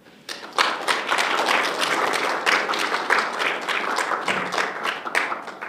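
Audience applauding, with dense, even clapping that dies away near the end.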